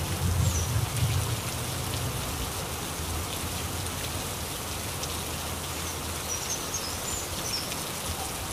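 Steady rain falling, an even hiss of drops on leaves and wet surfaces.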